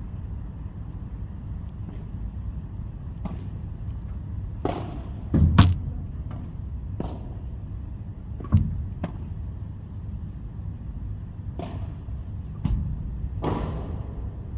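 Padel rally: a ball being struck by rackets and bouncing, giving sharp knocks every second or two, loudest as a quick pair about five and a half seconds in. A steady high-pitched whine runs underneath.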